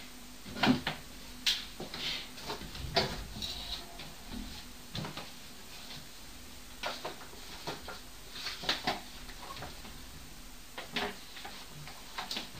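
Scattered short knocks and clicks of household clatter, about a dozen at irregular intervals, which the recordist attributes to the neighbours upstairs.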